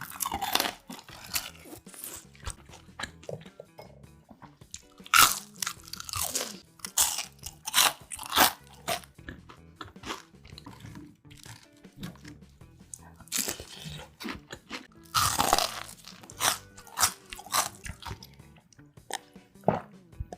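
Crunchy bites and chewing of crispy deep-fried tangsuyuk (Korean sweet-and-sour fried pork), a loud bite near the start and clusters of big crunches around five and around fifteen seconds in. Background music plays underneath.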